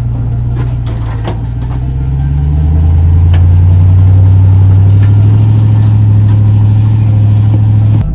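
Ram TRX's supercharged V8 engine running under load as the truck crawls up a steep rock climb on 40-inch tyres. It gets louder and holds about two and a half seconds in, with a few sharp knocks over the first few seconds, and cuts off abruptly near the end.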